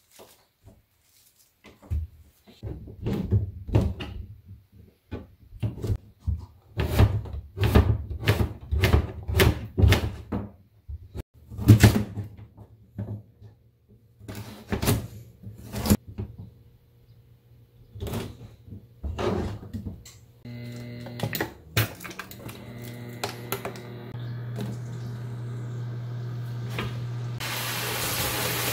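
Kitchen knife cutting carrots into thin strips on a plastic cutting board: a long run of irregular knocks. About twenty seconds in, a steady hum starts from the induction cooktop under the pan, and near the end a hiss rises as the vegetables cook in the pan.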